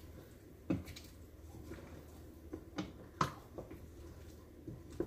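A handful of soft, separate knocks and clicks of kitchen utensils and containers being handled, about six in all, the loudest around three seconds in, over a faint low hum.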